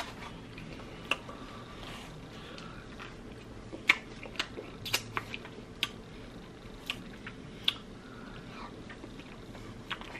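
Quiet eating of milk-soaked tres leches cake: chewing, with short, sharp wet mouth clicks and smacks scattered irregularly.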